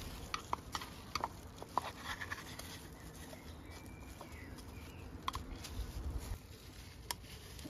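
Faint handling noises: scattered small clicks and plastic crinkling as gloved hands work the oil filter housing cap and pull off its old O-ring over a plastic sheet, over a low outdoor rumble.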